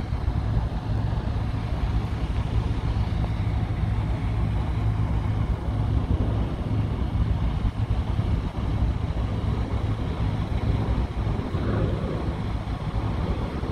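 An engine running steadily: a constant low drone with a steady hum and no changes in speed.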